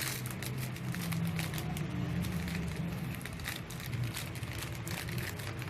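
Crackling and crinkling of toy packaging being handled, many small irregular clicks, over a low steady hum.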